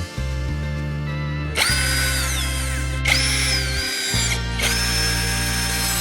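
An electric motor run in short spells: three times its whine rises quickly, holds, and falls away as it spins down.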